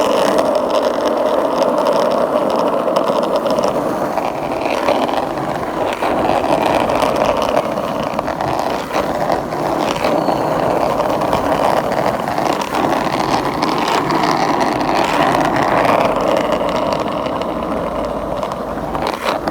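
Skateboard wheels rolling steadily over pavement, a continuous loud rolling roar with no breaks.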